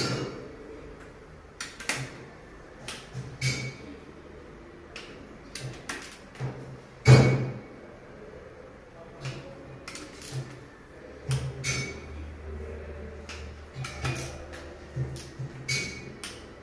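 Scattered sharp metal clinks and knocks from a long wrench being fitted to and pulled on the bearing cap bolts of a Toyota 1GR-FE V6 engine block, with one loud clank about seven seconds in.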